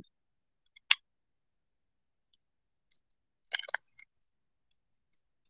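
Small clear plastic zip-lock bag of beads being picked and pulled open by hand: a single sharp click about a second in, then a brief crinkle of the plastic a little past halfway.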